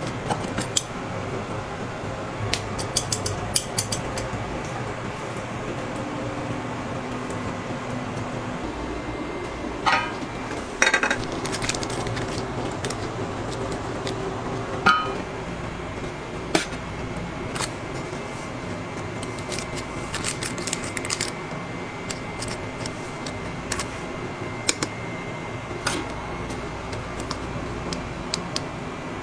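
Kitchen ambience: a steady hum of ventilation with scattered clinks and knocks of metal baking pans and utensils, a few louder ones about ten seconds in and again around fifteen seconds.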